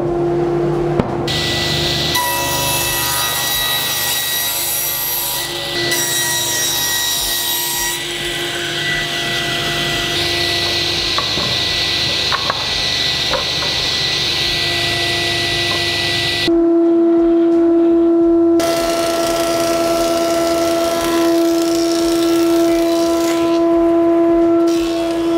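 Sliding table saw ripping spruce construction planks lengthwise into narrow strips: the blade running with a steady whine and the noise of each cut. About 16 seconds in it changes abruptly to a vintage thickness planer running with a strong steady hum as strips are fed through it.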